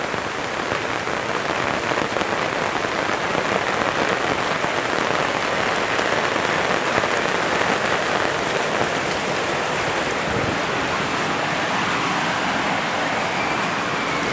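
Steady rain falling, a dense even hiss of drops with no let-up.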